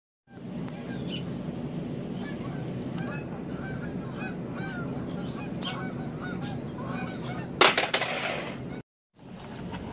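A plastic VHS cassette is thrown down onto concrete and lands with a sudden, loud clatter about seven and a half seconds in, sliding to a stop. Before that, birds call over and over above a steady low background rumble.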